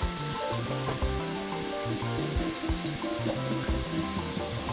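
Onions frying in red palm oil in a pot, a steady sizzle, under background music.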